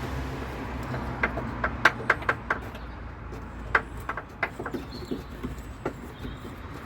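Irregular metallic clicks and knocks as the spare-wheel carrier bracket under a van is handled and screwed back into place.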